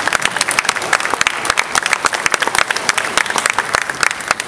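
An audience applauding, many hands clapping at once at a steady level.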